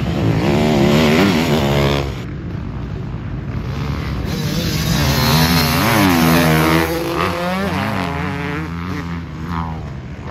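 Motocross dirt bikes racing past, among them a two-stroke Yamaha YZ250, their engines revving up and down through the gears. The sound is loudest about six seconds in, as two bikes pass close together.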